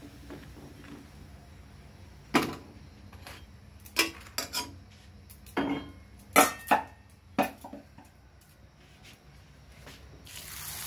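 Steel kitchenware clinking and knocking in a scattered series of about eight sharp knocks. Near the end a steady hiss of luchi frying in hot oil sets in.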